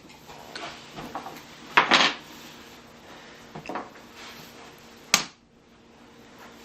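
Hard toy train pieces being handled, knocking and clattering together in a few separate knocks. The loudest is a short clatter about two seconds in, with another sharp knock a little after five seconds.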